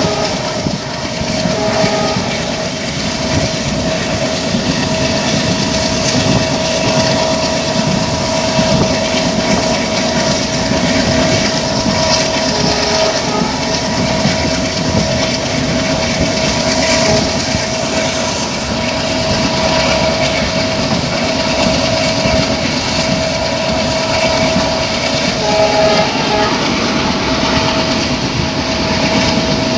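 Diesel-hauled passenger train running at speed, heard at an open coach door: steady rush of wheels on rail and wind, with a continuous whine through it. Short extra tones join the whine near the start, near the middle and near the end.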